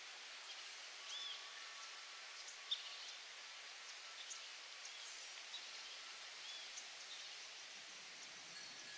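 Faint outdoor ambience: a steady soft hiss with scattered short bird chirps, and a single sharp click a little under three seconds in.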